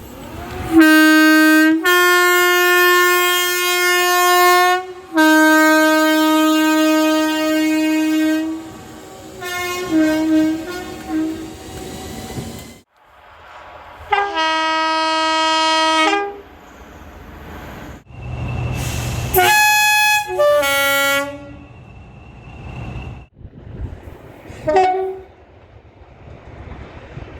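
Train horns sounding in a string of separate blasts: long two-note blasts at first, a low note then a higher one, then shorter toots at several different pitches. Between blasts there is quieter train rumble, and the sound cuts abruptly from one horn to the next.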